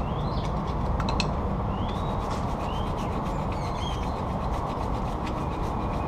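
Flathead screwdriver scraping and a scrubber rubbing caked grease off a brake pad bracket, as a run of short scratchy ticks. Under it runs a steady low background rumble, and a few short bird chirps come through several times.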